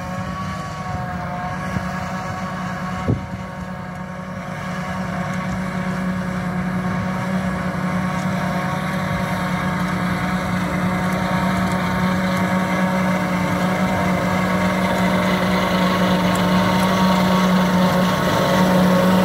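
John Deere 8400i self-propelled forage harvester at work picking up and chopping grass: a steady engine-and-chopper drone with a strong low hum, growing louder as the machine comes closer, together with the tractor running alongside. A single sharp click about three seconds in.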